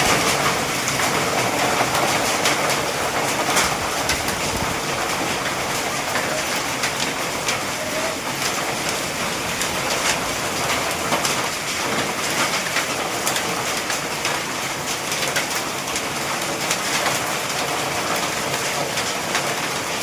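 Heavy rain falling steadily on hard surfaces: a dense, even hiss with many sharp ticks of drops striking.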